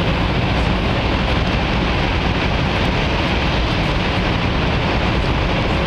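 Steady rumble and rush of a Taiwan High Speed Rail 700T train heard inside the passenger car while running at speed, even and unchanging throughout.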